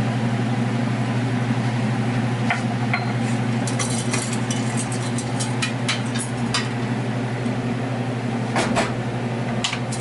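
A steady low machine hum, with light clicks and taps of a utensil against a stainless steel frying pan starting about two and a half seconds in, and a few sharper clinks near the end.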